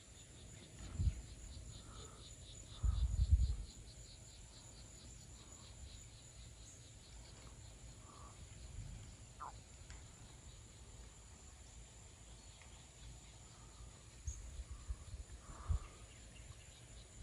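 Insects chirping in a steady, quick pulse, with a faint high drone underneath. A few short low thumps or rumbles come and go, about a second in, around three seconds in, and again near the end.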